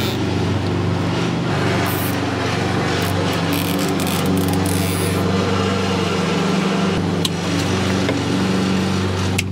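Lawn mower engine running steadily, its pitch wavering slightly, with one sharp click about seven seconds in.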